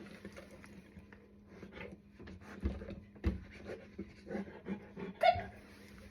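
A Black Russian Terrier panting in soft, irregular puffs, with one brief sharp sound about five seconds in.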